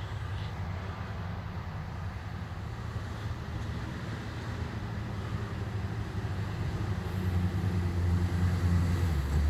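Engine of an off-road vehicle running with a low, steady drone that grows louder over the last couple of seconds.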